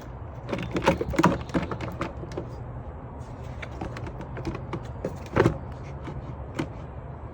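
Plastic air box knocking and clicking as it is worked back into place in the engine bay, with the loudest knocks about a second in and again a little past five seconds, over a steady low hum.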